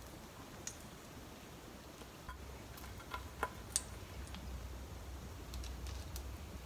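Faint, scattered clicks and light taps as a toothpick-skewered strawberry is swirled in sugar syrup in an aluminium pan and set down on a cooking sheet. A low hum comes in a little after two seconds in.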